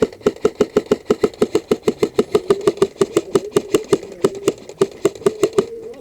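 Airsoft electric gun firing a long full-auto burst, about nine shots a second over the steady whine of its gearbox motor, stopping suddenly near the end.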